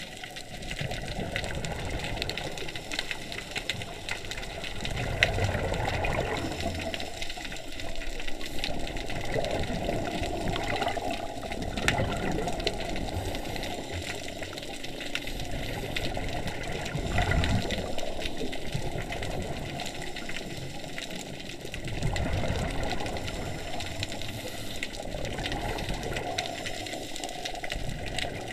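Scuba diver breathing through a regulator underwater: a steady noisy bubbling and hiss, with louder, deeper surges of exhaled bubbles recurring every few seconds.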